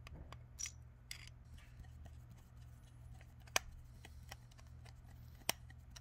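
Small metallic clicks and ticks of a long-shafted driver turning a plug down into a Kohler XT675 lawnmower carburetor body, with two sharper clicks about three and a half and five and a half seconds in.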